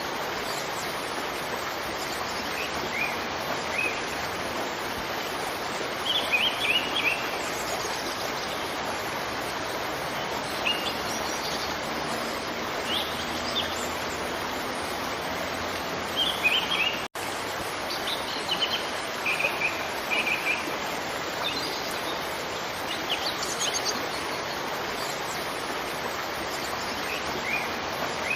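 Steady rush of a waterfall with songbirds chirping over it in short scattered phrases. The sound drops out for an instant about two-thirds of the way through.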